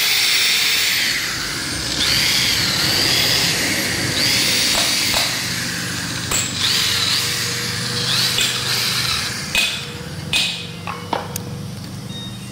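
Electric hand drill drilling out the rivets of a heavy truck's drum brake shoe. The motor pitch rises and falls in several runs as the bit bites into each rivet, with a few sharp clicks near the end.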